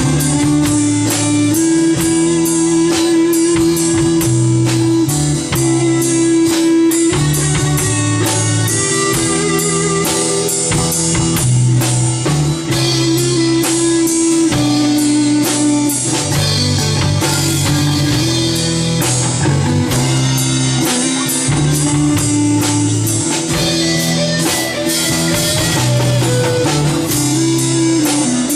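Rock band playing live: guitar over a low bass line, with a drum kit keeping a steady beat.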